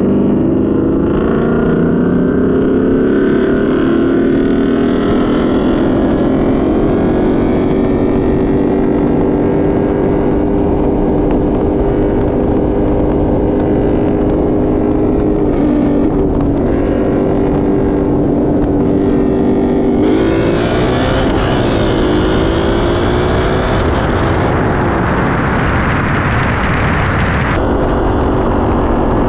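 Cat-deleted C7 Corvette Stingray's 6.2-litre V8 exhaust running hard at speed. The pitch climbs over the first few seconds and then holds steady. About 20 seconds in it turns into a wide-open-throttle pull, rising in pitch with heavy rushing wind, and the driver lifts off about 27 seconds in.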